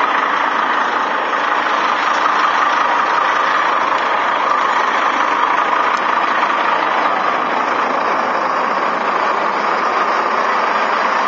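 Articulated dump truck running steadily, heard from inside its cab: an even, unchanging engine and drivetrain noise.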